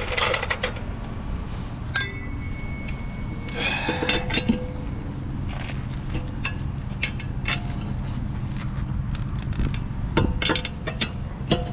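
Metal tools and tire-change hardware clinking and knocking, with one strike about 2 s in that rings on briefly, over a steady low rumble.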